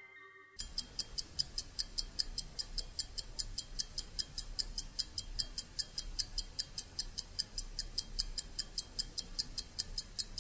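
A fast, even ticking, about five sharp ticks a second, starting about half a second in, over a faint low hum.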